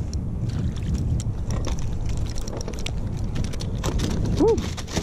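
Wind rumbling on the microphone around a kayak on the water, with scattered clicks and knocks as a fish is reeled to the side and swung aboard. A short rising-and-falling tone sounds near the end.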